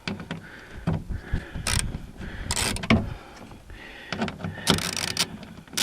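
Clicks, scrapes and rattles of the old factory door speaker being worked loose in the car door, with a longer scraping stretch near the end.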